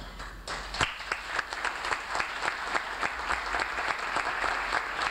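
Audience applauding: many hands clapping together, starting about half a second in.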